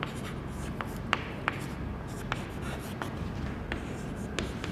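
Chalk writing on a blackboard: scratching strokes with irregular sharp taps as words are written out.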